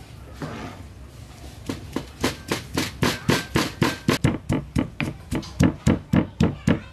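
Stone pestle pounding red chillies and garlic cloves in a stone mortar: a steady rhythm of about four dull strikes a second that starts about two seconds in.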